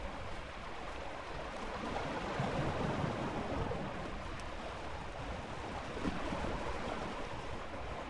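Ocean waves washing in, a continuous rush of surf that swells louder about two to three seconds in.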